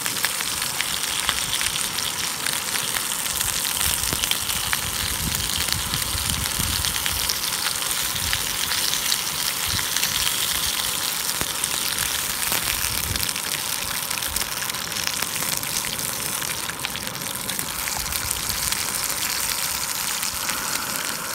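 Lamb chops sizzling in a frying pan on a portable gas canister stove: a steady crackling hiss dotted with fine spits and pops.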